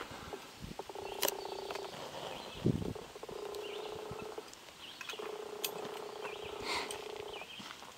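Timber rattlesnake rattling its tail in three separate buzzing bursts of one to two seconds each: a defensive warning from an alarmed snake. A low thump about two and a half seconds in, and a few sharp clicks.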